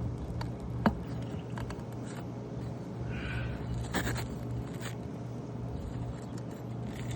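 Steady low engine hum with a sharp click about a second in, a brief squeak around three seconds in and a knock near four seconds in.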